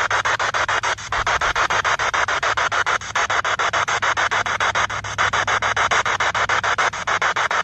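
Spirit box sweeping through radio stations: a steady stream of static chopped into rapid pulses many times a second, with a brief break about every two seconds.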